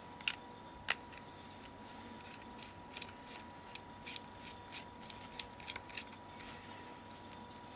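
Small T5 Torx screwdriver undoing tiny screws in a phone's plastic casing: two sharp clicks near the start, then a run of faint light ticks and scrapes as the bit turns in the screw heads.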